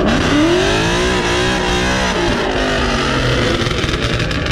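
A Ford Mustang's engine revving hard during a burnout. It climbs in pitch at the start, then wavers up and down as the rear tyres spin in a steady hiss.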